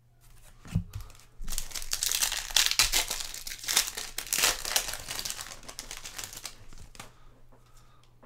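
Trading-card pack wrapper being torn open and crinkled: a soft thump just under a second in, then dense crackling and tearing for about five seconds that fades out near the end.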